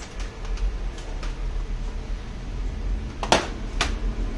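Two sharp clicks about half a second apart, the first the louder, over a steady low hum.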